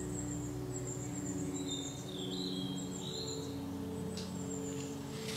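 Birds chirping in short, high, thin calls, with one warbling call about halfway through, over soft sustained background music.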